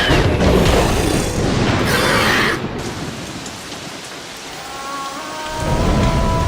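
Cartoon sound effects: a loud rushing noise for about two and a half seconds that fades away, then a low rumble swelling near the end as music notes come in.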